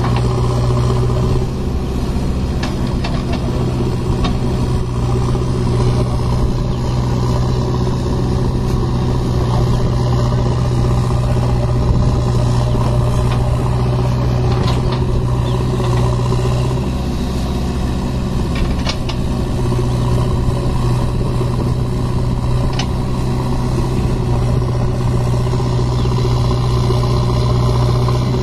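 Backhoe loader's diesel engine running steadily with a deep, even hum under working load, easing slightly about two-thirds of the way through, with a few faint knocks.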